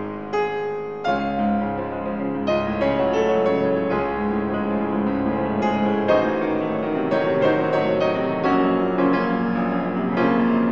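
Background piano music, a run of struck notes that carry on one into the next.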